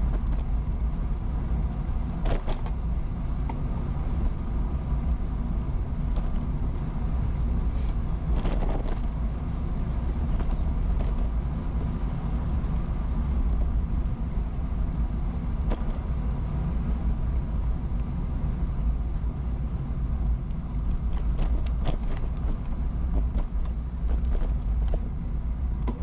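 Riding noise of an early-1970s Peugeot UJ-10 ten-speed bicycle in motion: a steady low wind-and-road rumble on the camera's microphone, with a few brief clicks scattered through it.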